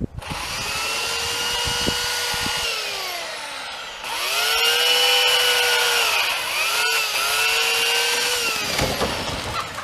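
Chainsaw running at full throttle while cutting through a tree trunk. Its whine sags in pitch twice as the chain bogs in the cut and climbs back each time, then winds down near the end.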